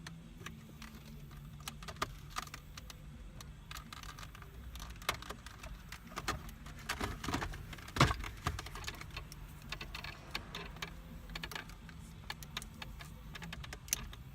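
Plastic car-interior trim pieces being handled: scattered small clicks, taps and rattles, with one sharper click about eight seconds in, over a low steady hum.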